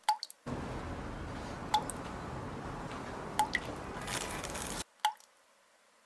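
Water dripping: single drops landing with a short plink about every second and a half, four in all. A steady hiss runs under the drops from about half a second in and cuts off suddenly near five seconds.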